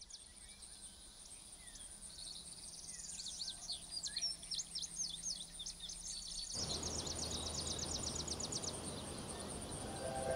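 Songbirds calling and trilling over a steady thin high-pitched tone, the sound fading in. About two-thirds of the way in a steady rushing noise joins, and one bird keeps up a fast trill of repeated notes for about two seconds.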